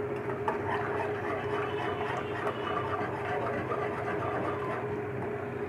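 Wire whisk stirring milk in a steel pan, its wires clicking and scraping against the metal in quick, irregular strokes, over a steady hum.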